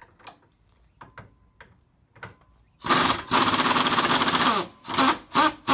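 Impact wrench hammering a track bar bolt loose: one long run of nearly two seconds, then a string of short bursts as the bolt spins off. Faint knocks and clicks of hand tools come before it.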